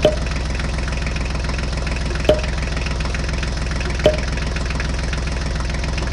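A tractor engine idling steadily with an even knocking chug, laid over the toy tractor as a sound effect. Four sharp clicks come about two seconds apart as miniature bricks are set into the tractor's plastic trailer.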